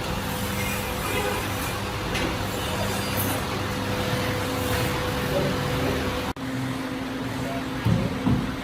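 Steady machine noise with a low hum, broken by a sudden cut about six seconds in.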